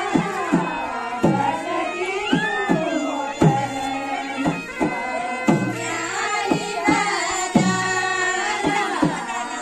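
Kumaoni chanchari folk song: voices singing over a hand drum, its low strokes bending down in pitch about once a second.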